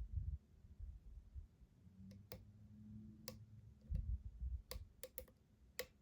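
Lock picking: a metal pick clicking against the pins and warding inside a lock's keyway, about seven small sharp clicks spread over the second half, with dull low bumps of the lock being handled.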